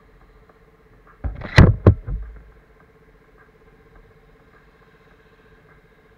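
A quick cluster of three or four sharp knocks or thumps, starting about a second in and fading out within a second, over a faint steady hum.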